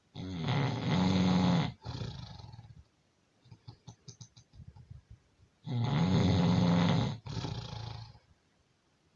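A person snoring: two long, loud snores about five and a half seconds apart, each a low pitched drone that rises at the start and then holds. Each is followed at once by a shorter, softer breath, with faint clicking breath sounds in the gap between them.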